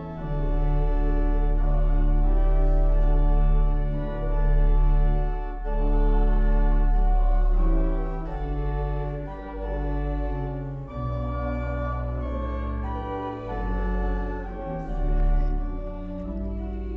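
Pipe organ playing slow, held chords over deep pedal bass notes, changing chord every second or two with brief breaks between phrases.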